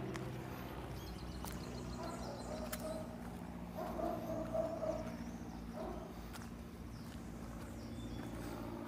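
Street ambience with a steady low mechanical hum, a mid-pitched tone that swells and fades in the middle, and a few light clicks.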